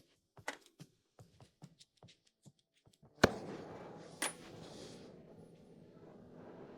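A few light clicks, then a sharp pop about three seconds in, after which a steady rushing hiss of a cutting torch flame starts and keeps going.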